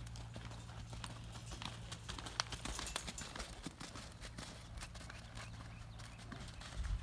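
A horse loping around a dirt arena: a steady, irregular run of hoofbeats on the dirt, over a low steady rumble that swells near the end.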